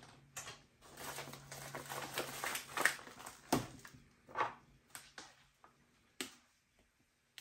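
Plastic bag of Tender Quick curing salt crinkling as it is folded shut and handled. There are several louder rustles around the middle, then a couple of sharp taps as it is set down.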